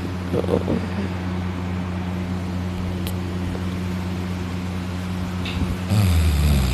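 A man snoring in deep sleep, lying on his back with his mouth open. A loud, fluttering snore begins near the end over a steady low hum.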